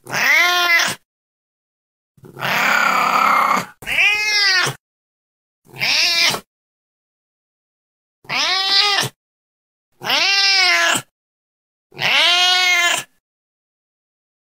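Domestic cat meowing about seven times, each meow roughly a second long and rising then falling in pitch, with dead silence between calls. One call about two seconds in is longer and rougher.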